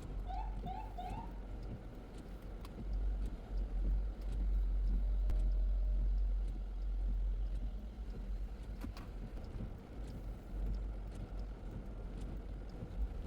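Steady low rumble of a car driving on a wet street, swelling louder for a few seconds in the middle, with scattered light ticks. In the first second, a rapid rising electronic yelp repeats about three times a second, then stops.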